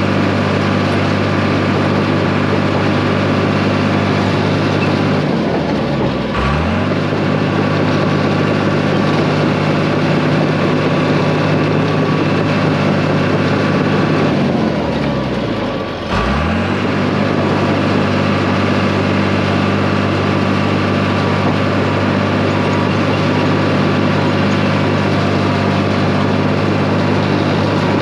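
Bulldozer's diesel engine running steadily at working speed. Twice it briefly drops in speed and climbs back up.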